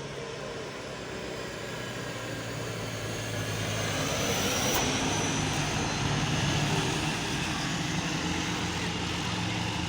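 A large bus driving past close by, its engine humming steadily low while engine and tyre noise grow louder about halfway through. A brief high squeal sounds near the middle. No telolet horn is heard.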